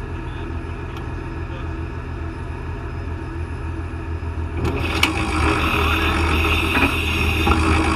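Off-road vehicle's engine running steadily as it climbs a hill, growing louder and harsher about halfway through.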